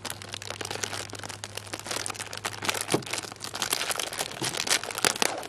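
Plastic wrapper of a package of Coca-Cola Oreo cookies crinkling as it is handled and opened, a continuous run of crackles.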